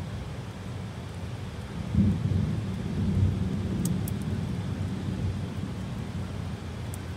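Thunder rumbling low over steady heavy rain, swelling about two seconds in and then slowly dying away.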